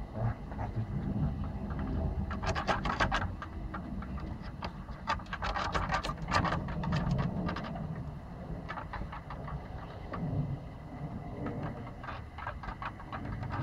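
Puppy sniffing and brushing its fur and nose right against the microphone, in several short bursts of quick rustling and snuffling clicks over a steady low rumble.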